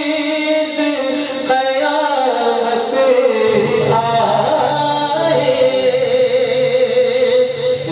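A man singing a devotional Urdu naat unaccompanied into a microphone, drawing out long held notes with gliding ornaments. A low steady drone joins in beneath the voice about halfway through.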